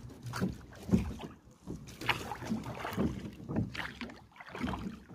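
Small rowboat being rowed across a lake: repeated oar strokes swishing and splashing in the water, with wind rumbling on the microphone.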